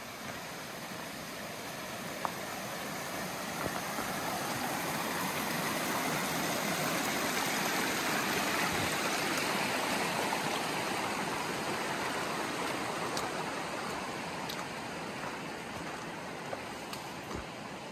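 Rushing water of a mountain creek, a steady hiss that grows louder toward the middle and fades again toward the end.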